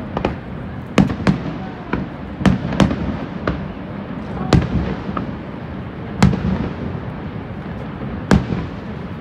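Fireworks shells bursting in a string of sharp bangs, about eight at irregular intervals, over a steady noisy background.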